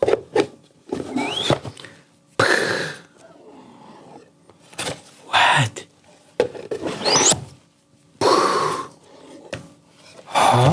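A man's short, comic vocal noises in bursts: breathy exclamations, grunts and a cough-like sound, with a quick "What?" about halfway through.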